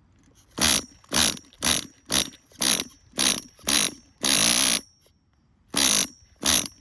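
Tamiya TGS-R's small nitro engine being cranked over in a quick run of short bursts, about two a second with one longer spin midway, whirring without catching. The engine won't fire: it isn't priming, which the owner takes for fuel starvation.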